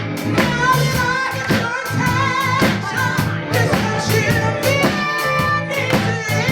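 Live band accompaniment with a steady drum beat, with a singer holding long notes over it.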